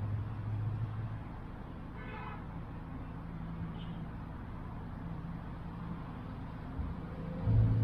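Low, steady rumble of road traffic, with a strong low engine hum fading out about a second in. About two seconds in comes a short pitched toot, like a horn, and a loud low engine sound swells up near the end.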